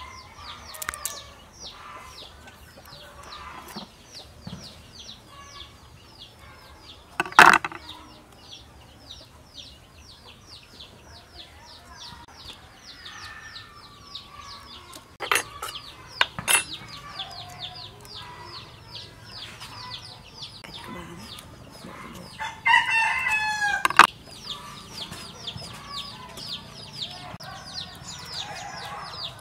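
Farmyard chickens clucking, with a rooster crowing once late on, over a fast, steady high chirping. A few sharp knocks stand out, one about a third of the way in.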